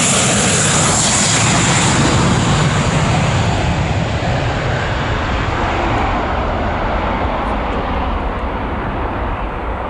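Cargo plane's engines at takeoff power: a loud rushing roar whose high hiss fades after about two seconds, the whole sound then slowly dying down as the aircraft moves away.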